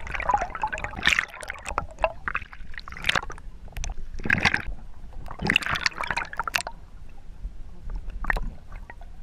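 Water splashing and gurgling in irregular bursts around a partly submerged camera as a bass is lowered into the lake and released.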